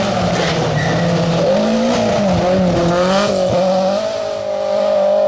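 Rally car engine running hard as the car comes through a bend and passes close, its note rising and dipping with the throttle for the first few seconds, then holding steady.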